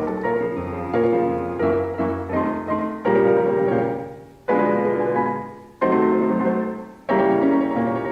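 Background piano music: chords struck one after another, each fading out, the later ones left to die away almost fully before the next chord about every second and a half.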